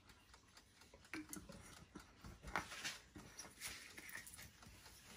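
Faint kitchen handling noise: a few light clicks and knocks as a sauce bottle is poured into a small bowl and moved aside, the loudest knock about two and a half seconds in.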